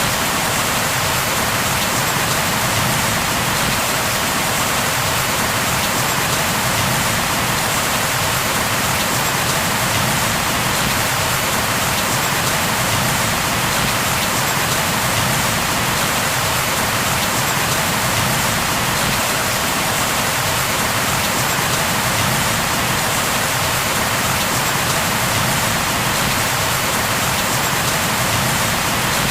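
Steady heavy rain falling on a surface, a dense even hiss of many drops that does not let up.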